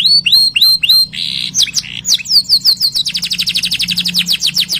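Domestic canary singing. It gives a few slow, downward-curving whistled notes, then a short harsh buzzy note, then changes about three seconds in to a very fast rolling trill of rapidly repeated notes.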